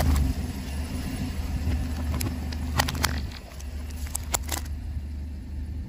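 A car's engine running slowly as its tyre rolls over plastic syringes of coloured jelly, with several sharp cracks of the plastic barrels breaking under the tyre: a few a little over two seconds in and again around four and a half seconds.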